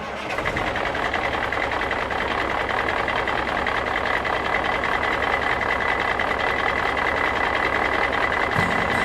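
Drone motors and propellers running steadily, a loud whirring with a constant high whine and a fast flutter, starting abruptly. Music comes in near the end.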